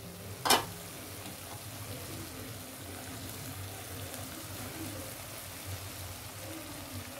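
Mash (urad) daal cooking dry in a metal pot, a faint steady sizzle as its last water has cooked off, with one sharp click about half a second in.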